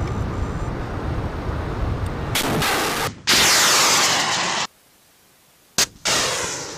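FIM-92 Stinger missile launches: a loud blast, then the rocket motor's rushing hiss falling in pitch as the missile flies off, cut off abruptly. After a short near-silence comes a sharp crack and a second launch whose roar fades away. Before the first launch, a steady rushing noise.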